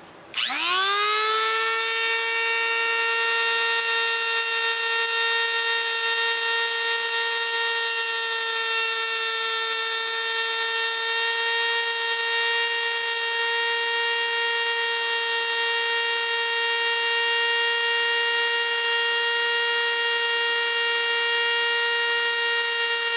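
Dremel rotary tool with a sanding drum starting up just after the start, its whine rising quickly to a steady high pitch, then running steadily while grinding the edge of a thin metal reed-valve strip, with a faint scratchy hiss from the drum on the metal.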